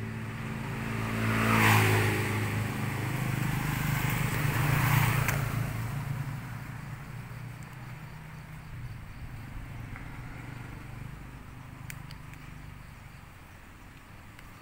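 A motor vehicle engine passing by, growing louder to a peak about two seconds in and again about five seconds in, then fading away.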